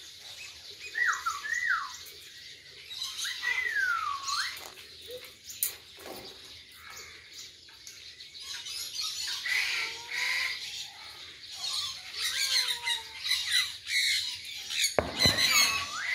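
White cockatoo squawking, with pitched calls that slide up and down, repeated several times. There is a sharp knock near the end.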